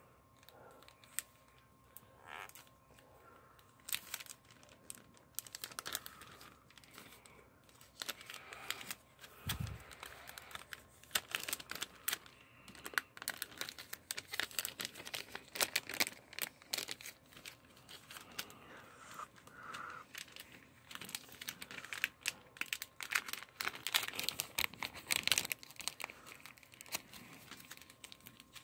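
Clear plastic packaging of a shrink-charm kit crinkling and crackling as fingers pick and pull at it, trying to tear it open by hand. The crackles come irregularly throughout.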